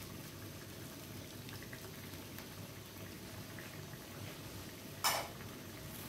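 Coconut-milk sauce simmering in a wok over a gas burner, a steady low bubbling. A single sharp knock about five seconds in.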